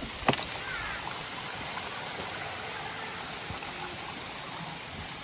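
Steady rush of running water from a partly frozen waterfall, with a single sharp click about a third of a second in.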